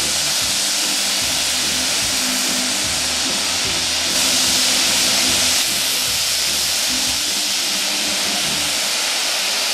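BR Standard Class 4 tank locomotive 80002 blowing off steam: a loud, continuous hiss that swells for about a second and a half around the middle.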